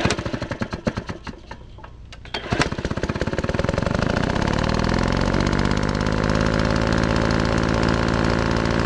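Small engine firing unevenly in separate pops for a couple of seconds, then catching with a loud bang and running at a fast, steady beat.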